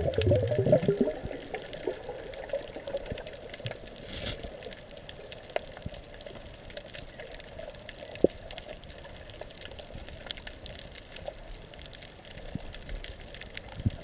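Underwater ambience recorded beneath the surface over a reef: a burst of bubbling, rushing water in the first second or so, then a steady hiss with many scattered sharp clicks and crackles.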